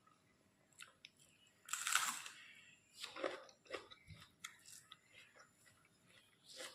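Close-up eating sounds: a loud crunchy bite about two seconds in, then chewing with small mouth clicks.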